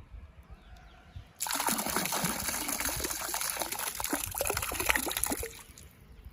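Water poured out of a container into a river to release caught fish: a splashing gush that starts about a second and a half in and stops about four seconds later.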